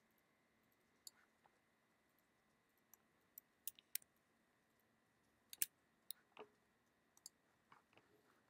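Near silence, broken by about a dozen faint, sharp clicks from working a computer's mouse and keyboard, the sharpest a little past the middle.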